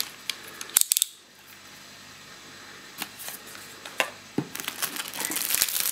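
Packaging being handled in a cardboard box: a few light clicks and knocks, then from about four and a half seconds in, a dense crinkling of a foil bag being picked up.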